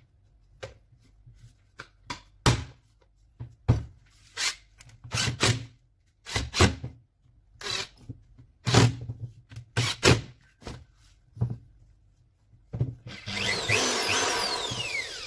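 A Makita 9237C polisher being handled on a workbench: a string of knocks and clatters from its housing and parts. Then about two seconds of whirring whose pitch falls before it stops near the end.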